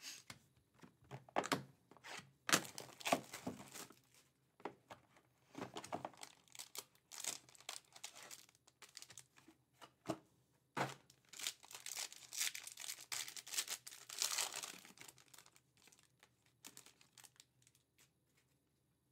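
Packaging of a Topps Tier One baseball card box being torn open and crinkled: irregular bursts of tearing and crumpling wrapper, the longest and loudest stretch about eleven to fifteen seconds in.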